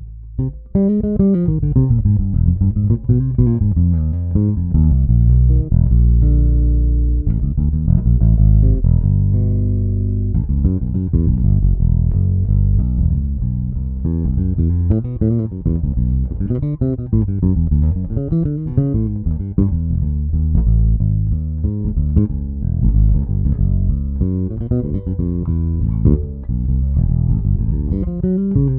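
Warwick Rockbass Fortress four-string electric bass being played: a continuous line of plucked notes, with sliding pitches near the start and a few longer held notes about six to ten seconds in.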